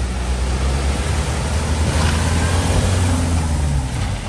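A Bessacarr motorhome's engine running as it drives out of floodwater and passes close by, with the rush of water and wet tyres over it. It gets louder about halfway through as the van passes.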